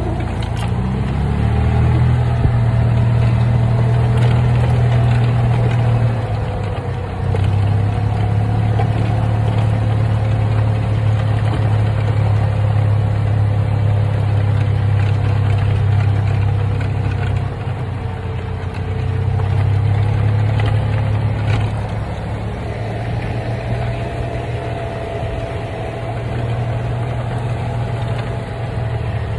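Golf cart driving along, heard from the seat: a steady low drone from its motor and drivetrain with a faint whine above it that drifts a little in pitch. The drone drops away briefly a few times, as when the pedal is eased.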